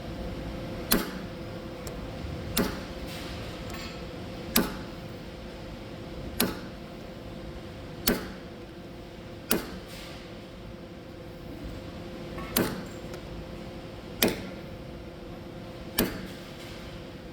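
Hammer striking a punch in single sharp metal blows, about nine of them a second and a half to two seconds apart, staking Loctited fasteners so they can't back out. A steady hum runs underneath.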